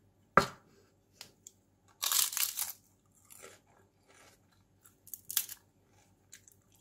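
Crispy baked chicken skin crunching as it is bitten and broken: a loud crackly crunch about two seconds in and a shorter one near five seconds, with small crackles between. About half a second in there is a single sharp knock.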